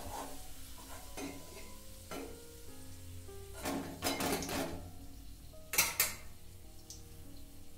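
A metal spoon scraping and clinking against an aluminium kadhai as fried potato slices are scooped out of hot oil, several strokes with the loudest about four and six seconds in. The oil sizzles lightly under them, with faint background music.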